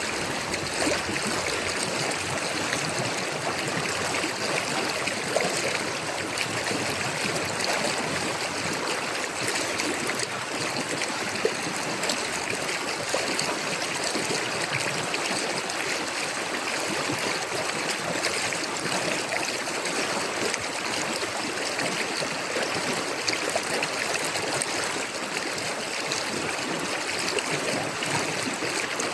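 A river flowing over rocks, a steady rushing and trickling of water that does not change.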